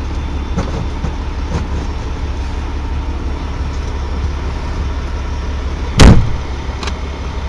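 Heavy truck's diesel engine idling steadily as a low rumble, heard from inside the cab. A loud thump comes about six seconds in, with a few fainter knocks before it.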